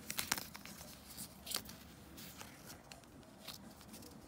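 Faint crinkling and rustling of the thin protective wrap being peeled off an AirPods Pro charging case by hand. A few sharper crinkles come near the start and about a second and a half in.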